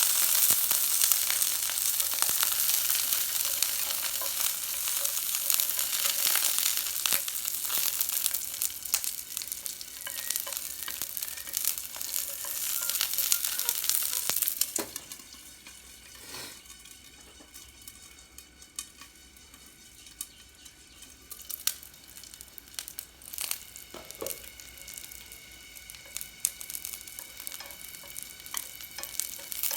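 Cicadas deep-frying in hot oil, sizzling hard. About halfway through the sizzle drops sharply to a much quieter hiss with scattered crackling pops.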